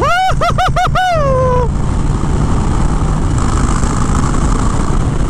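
Harley-Davidson Fat Bob 114's V-twin engine running at road speed with wind noise. In the first second and a half, a high, warbling vocal whoop rises and falls several times quickly and ends in one long falling note.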